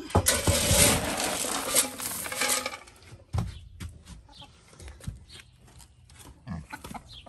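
Plastic scoop digging into a bin of animal feed pellets, a loud rushing rattle of pellets for about two and a half seconds, followed by scattered knocks and clatter as the feed is carried.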